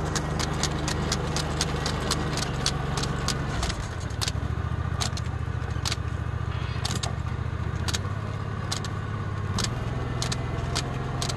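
Walk-behind rice transplanter running while it plants seedlings: a steady small-engine hum that shifts pitch slightly a couple of times, with a regular clicking about three times a second from the machine.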